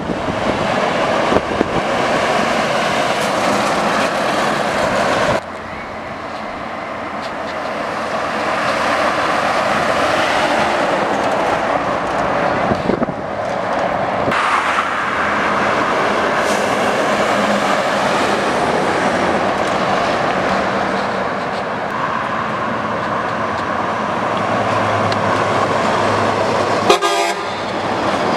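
Heavy diesel trucks driving past one after another, engine and tyre noise rising and falling as each goes by, with horn toots.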